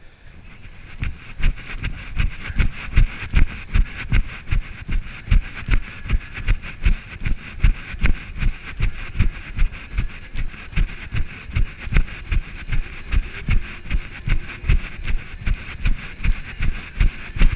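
Running footsteps on dry dirt, heard as heavy, regular thuds about three a second as a body-worn action camera jolts with each stride, starting about a second in, over a steady hiss.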